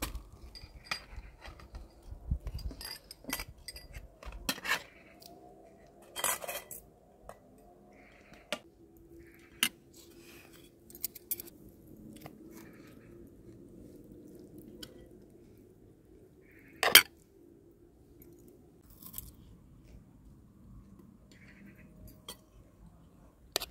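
Spoon and fork clinking and scraping on dinner plates during a meal, in scattered separate clinks, with one loud clink about two-thirds of the way through.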